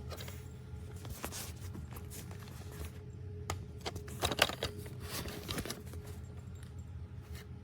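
Hard plastic parts clicking, knocking and scraping as an aftermarket part is handled and tried against the vacuum and fails to fit, with a small cluster of louder knocks about halfway through. A faint steady hum runs underneath.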